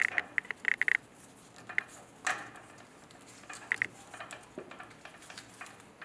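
Light clicking and rattling in short quick clusters as a manometer's rubber tube is pushed and worked onto the pressure port of a water heater's gas control valve, with one sharper click about two seconds in.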